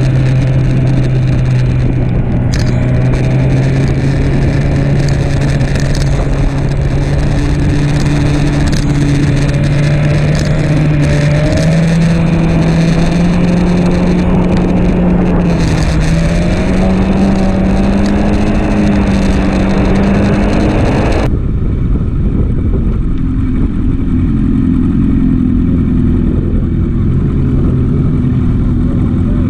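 BMW S1000RR's inline-four engine running at track speed with wind rush, its note climbing gradually in a few steps. About two-thirds of the way in the sound cuts suddenly to a much calmer low engine note with little wind, the bike moving slowly.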